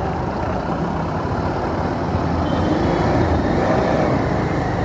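Steady engine and traffic noise from a Bajaj Pulsar 220F's single-cylinder engine at low speed in dense, slow traffic, with trucks close alongside.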